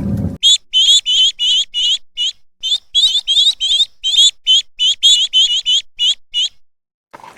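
A bird chirping: a quick run of about twenty short, high, identical chirps, three or four a second, that stops near the end. A loud rushing noise cuts off just before the chirps begin.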